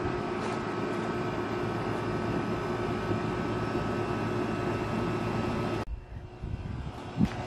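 A steady mechanical drone with a faint hum that cuts off suddenly about six seconds in, followed by quieter background with a couple of short knocks.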